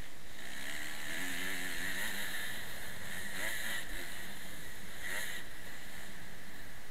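Motocross bike engine heard from a helmet-mounted camera, its pitch going up and down repeatedly as the rider works the throttle and shifts round the dirt track.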